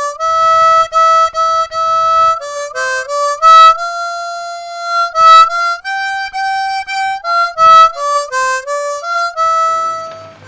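Harmonica playing a melody, each note doubled an octave higher, with a mix of held notes and short repeated ones; the tune fades out just before the end.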